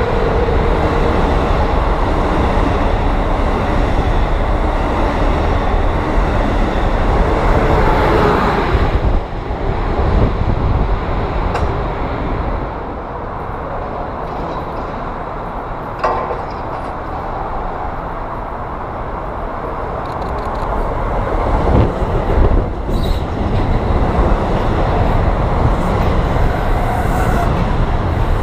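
An Amtrak Acela Express trainset rolls past close by with a loud steady rush that falls away about nine seconds in. It leaves a lower rumble with a single sharp knock. From about 22 seconds an NJ Transit Bombardier MultiLevel commuter train comes alongside, building again with wheel clatter.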